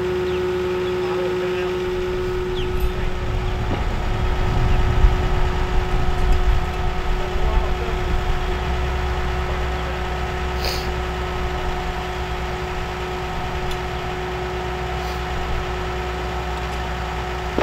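Boat travel lift's engine running at idle with a steady whine over a low rumble; the rumble swells for a few seconds in the middle.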